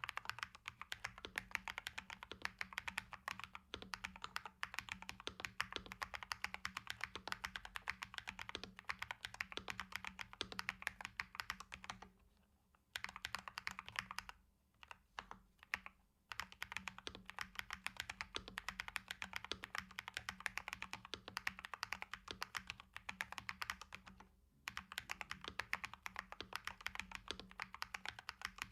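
Typing on a KBD67 Lite mechanical keyboard with old Holy Panda tactile switches: a quick, steady patter of keystrokes, broken by a few short pauses midway.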